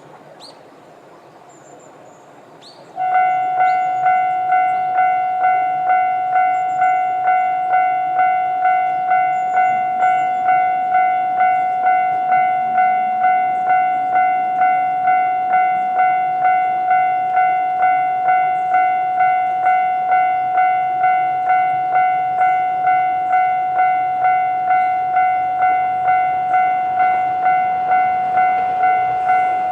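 Japanese railway level-crossing electronic warning bell, starting suddenly about three seconds in and then ringing in a steady, even beat of repeated dings, its normal warning tone.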